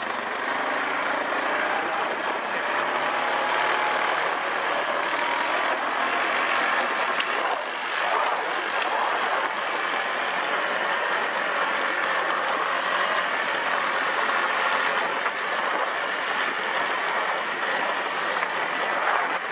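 ATV engine running steadily under a constant rushing noise.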